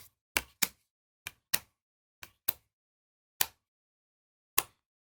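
Magic: The Gathering cards being handled as a booster pack is gone through: about nine short, sharp snaps and taps at uneven intervals as cards are flicked and set down one at a time.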